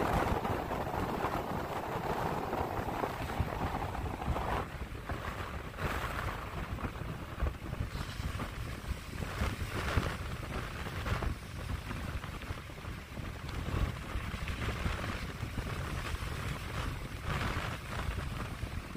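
Strong gusty wind buffeting the microphone with a constant low rumble, over the wash of heavy storm surf breaking on the beach.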